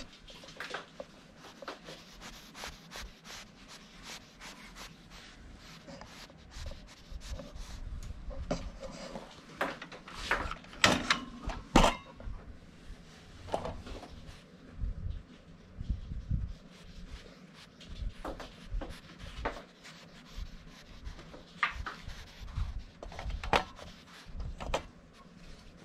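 Handling noises at a wire pet cage: scattered clicks, knocks and rubbing, with the two loudest knocks about 11 and 12 seconds in.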